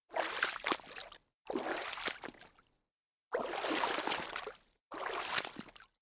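Water splashing in four separate bursts, each about a second long, starting sharply and dying away, with dead silence between them.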